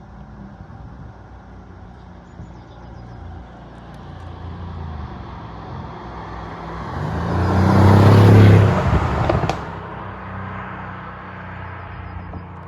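Mercedes-AMG GLC 63 S 4.0-litre twin-turbo V8 running at low revs, then swelling much louder for about three seconds and peaking about eight seconds in. It drops off suddenly about nine and a half seconds in, then settles back to a low run.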